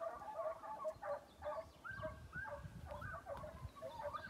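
A pack of American foxhounds baying together, many short overlapping calls, some held briefly and some bending in pitch. This is the pack giving tongue while running a hare's scent.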